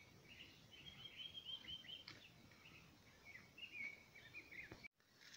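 Near silence with a bird faintly chirping in the background: two runs of quick, high repeated notes, the second starting a little past the middle. The sound cuts off abruptly shortly before the end.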